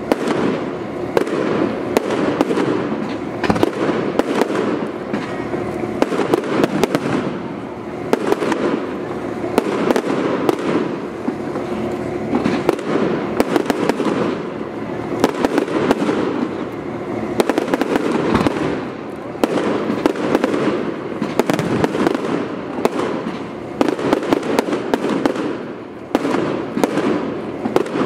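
Fireworks display: aerial shells bursting in a dense, continuous run of crackling pops and bangs, many every second.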